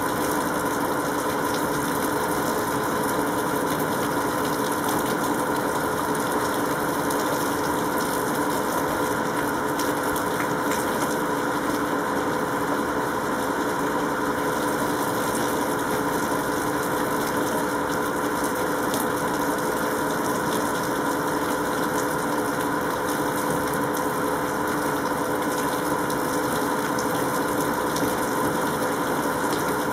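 Steady mechanical hum made of several fixed tones over a hiss, unchanging throughout, like machinery running continuously.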